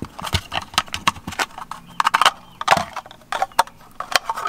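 Handling of a mini camping gas stove and its small plastic case: irregular clicks, clacks and metallic clinks as the case and the stove's metal parts knock together.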